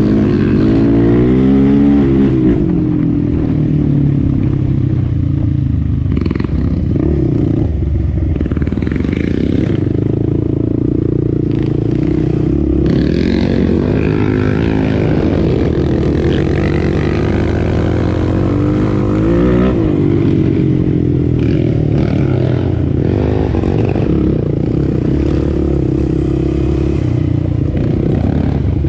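Sport ATV engine running hard on a trail, its pitch rising and falling again and again as the throttle is opened and closed. Scattered clattering knocks come through now and then.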